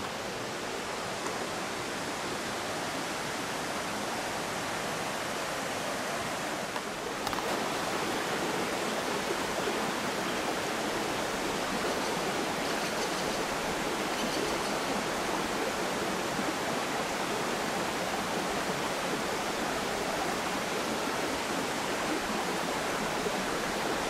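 Steady rush of flowing water in a mountain gorge river, becoming louder about seven seconds in.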